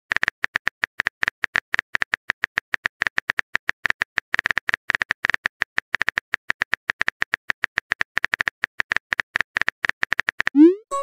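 Rapid, irregular keyboard-tap clicks of a texting app's typing sound, about eight to ten a second, as a message is typed letter by letter. Near the end the clicks stop and a short rising swoosh plays as the message is sent.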